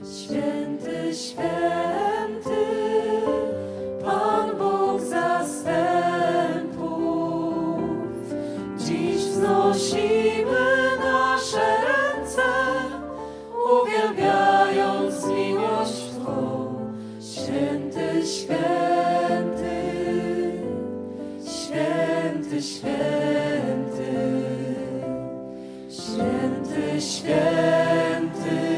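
A choral worship song of praise: several voices singing continuously in harmony.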